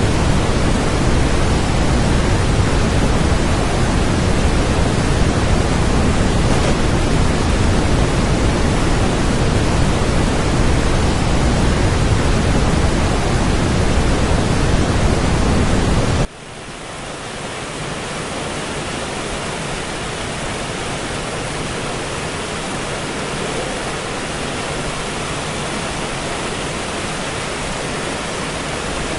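Waterfall rushing steadily with a deep rumble. About sixteen seconds in it cuts suddenly to a quieter, thinner rush with little low rumble, which swells back slightly and holds steady.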